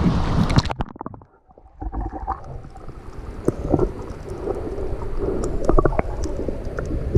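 Wind and splashing water on an action camera's microphone at the surface. About a second in, the camera goes underwater and the sound turns to a muffled underwater rumble, with scattered clicks and gurgling bubbles.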